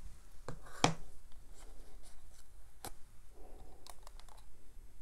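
Handling of a paperboard milk carton and packaging: a sharp tap about a second in and another near three seconds, then papery rustling and a quick run of clicks as the carton's gable top is pulled open.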